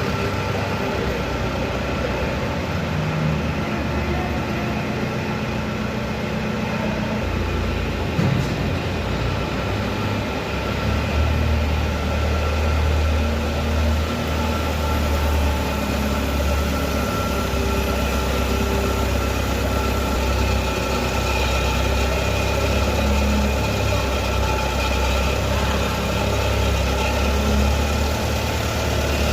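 Steady low hum of running industrial machinery, with a faint steady high tone above it and a single small click about eight seconds in.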